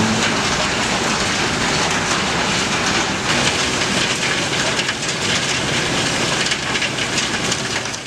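Conveyor machinery at a cement works running: a steady, dense rattling clatter with hiss.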